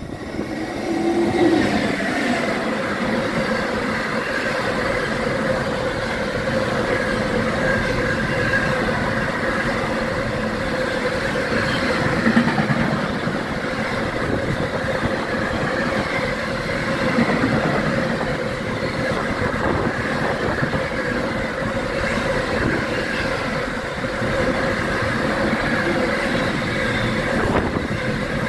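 A train rolling past on the rails. The sound builds over the first second or two, then holds steady and loud, with a steady mid-pitched hum over the rolling noise.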